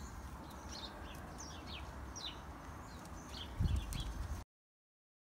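Small birds chirping in repeated short falling calls over a low rumble of wind on the microphone, which gusts about three and a half seconds in. The sound cuts off abruptly near the end.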